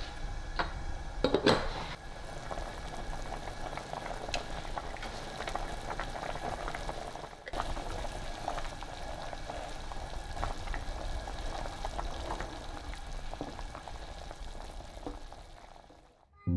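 Pot of chicken broth and rice soup bubbling on the stove, with a utensil clinking and knocking against the pot, loudest about a second and a half in. The bubbling fades out near the end.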